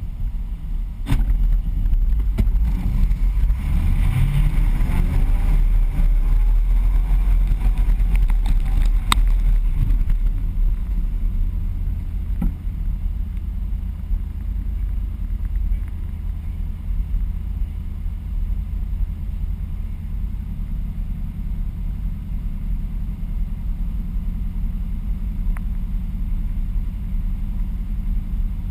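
Ford Bronco engine revving up and down for the first ten seconds or so, with a couple of sharp knocks, then settling into a steady idle.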